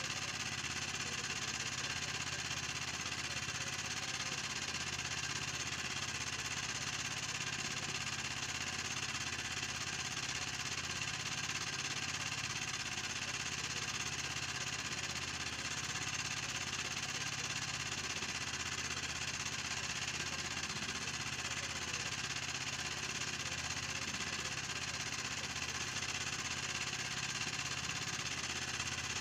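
A small engine running steadily, an even low drone with a broad hiss over it that never changes.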